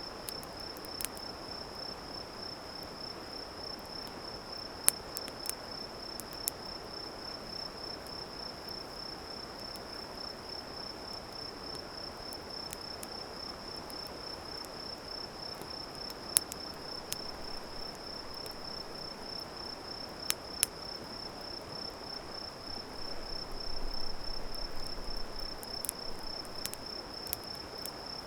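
Insects trilling without a break in one high, fast-pulsing tone, over a steady low hiss, with now and then a sharp pop from burning firewood crackling in a campfire.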